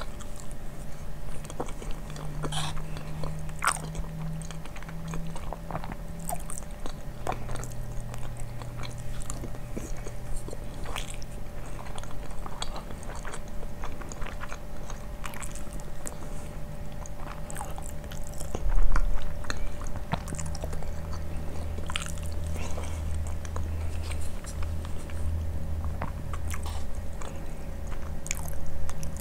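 Close-miked eating sounds: chewing and wet mouth clicks over mouthfuls of yogurt and basmati rice eaten from a wooden spoon, with many small crackles. There is a low steady hum underneath, and one louder low thump about two-thirds of the way in.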